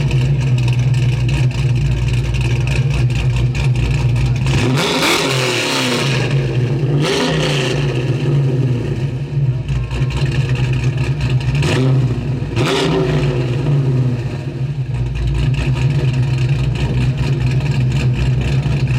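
Car engine idling, revved briefly four times, twice close together about a third of the way in and twice more past the middle.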